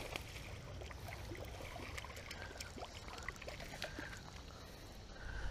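Faint splashing of a hooked bass at the water's edge as it is reeled in on a baitcasting rod, with many small scattered clicks and ticks.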